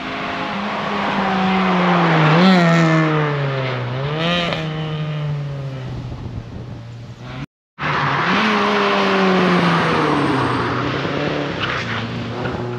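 Rally car engines passing at speed on the stage: the engine note falls, rising briefly twice about two seconds apart as the driver blips the throttle. After a short break in the sound, another pass with the engine note falling away.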